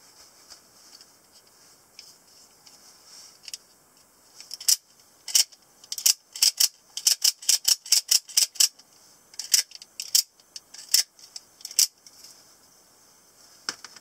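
A quick series of about twenty sharp, high clicks and snaps from a black knuckle-guard automatic (spring) knife being worked in the hand. They come in irregular bunches, fastest at about three or four a second in the middle.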